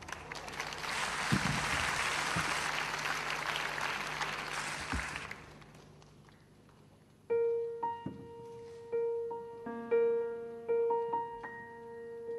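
Audience applauding for about five seconds. After a short pause, a Steinway grand piano plays a slow opening of single notes and soft chords.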